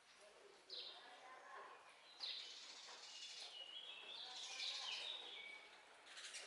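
Faint birdsong: a short high chirp about a second in, then a run of chirps and stepped whistled notes through the middle, over a quiet background hiss.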